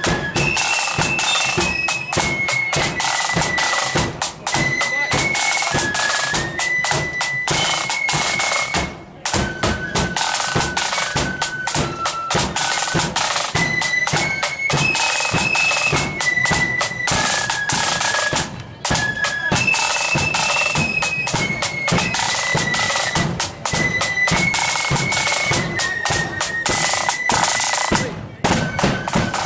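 Marching flute band playing a tune: massed flutes carry a shrill melody over snare drums and a bass drum beating out the march, with short breaks between phrases.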